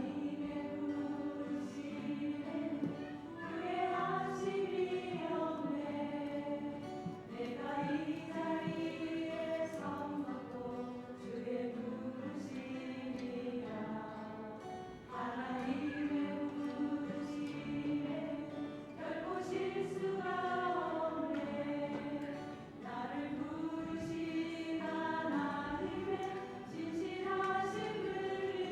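Church choir singing a gospel hymn in phrases of sustained notes, with instrumental accompaniment.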